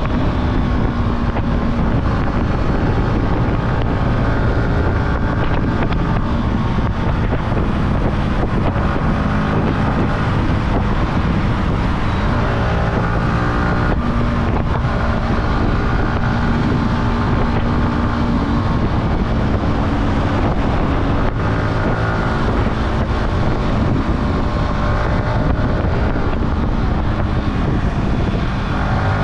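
Yamaha R15's single-cylinder 155 cc engine running under way as the motorcycle is ridden on the road, its note rising and falling with the throttle. Wind rushes over the microphone.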